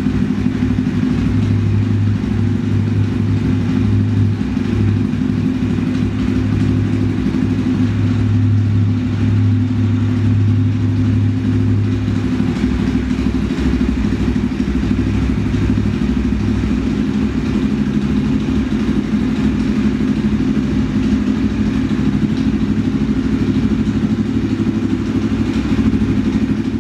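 Husqvarna 630 SMR's single-cylinder four-stroke engine idling steadily.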